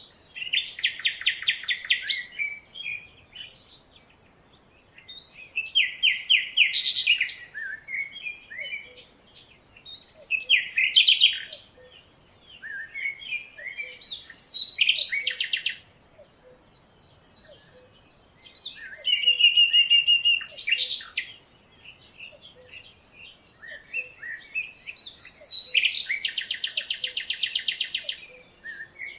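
Songbirds singing: bursts of rapid trilled chirps lasting two to three seconds each, coming every four or five seconds. A faint low pip repeats about once a second underneath.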